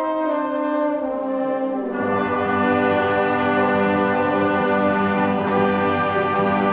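A combined brass band playing a hymn in long held chords; about two seconds in, the low brass comes in and the chord grows fuller and louder.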